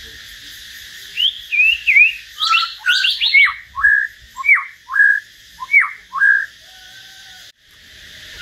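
Caged songbird singing: a run of loud, clear whistled notes, many gliding down in pitch and some ending in a short level note, repeated almost a second apart. A steady high hiss runs behind it.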